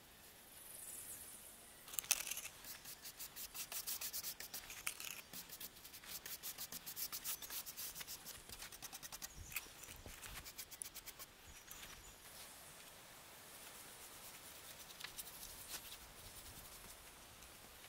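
Rapid rhythmic scraping strokes of a hand tool working wood, several strokes a second, starting about two seconds in and thinning out to a few fainter scrapes after about eleven seconds.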